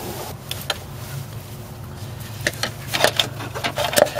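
Scattered clicks and light metallic knocks of hand tools and fittings being handled while working on the power steering pressure line, coming thickest near the end, over a steady low hum.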